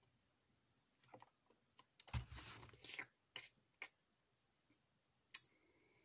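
Faint handling noises from a cardboard juice carton: a soft thump with a short rustle as it is set down on the desk about two seconds in, among a few light clicks and taps, with one sharper click near the end.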